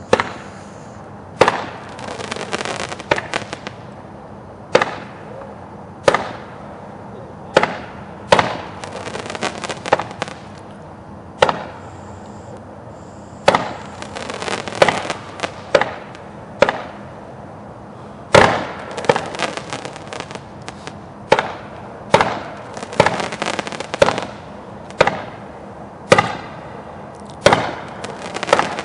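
Megaton 'Tails, Crackles and Bombs' aerial firework cake firing shot after shot: a steady string of sharp bangs, roughly one a second, with spells of crackling after several of them.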